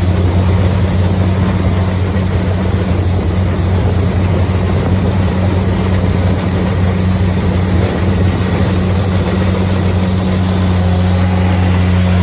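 Kubota DC-70 combine harvester running steadily while cutting and threshing ripe rice, a continuous low engine drone under the clatter of the machinery.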